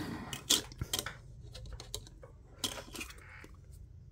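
Light clicks and clatter of a plastic nail-polish swatch wheel being picked up off a tray and handled, with sharp taps about half a second in, around one second, and again near three seconds.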